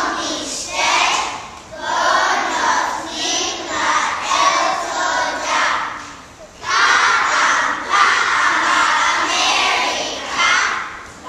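A class of young children's voices in unison, loud and in phrases, with a short pause about six seconds in.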